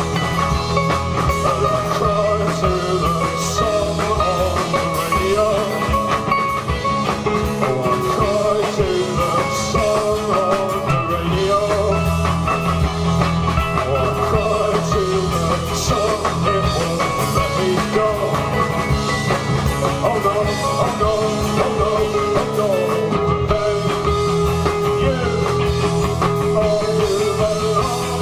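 Live rock band playing an instrumental passage, with steady drums under sustained guitar lines.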